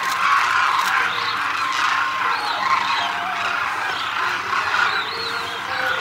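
A large flock of demoiselle cranes calling all at once: a dense, unbroken chorus of many overlapping calls.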